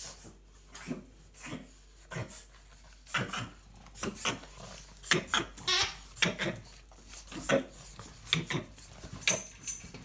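A pug reverse sneezing: short snorting inhalations through the nose, repeated irregularly at about one to two a second.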